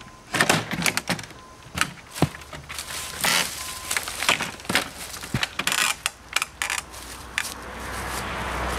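Irregular knocks and taps on a free-standing wooden door frame, mixed with short rustles like footsteps in dry leaves. Near the end a steady hiss builds.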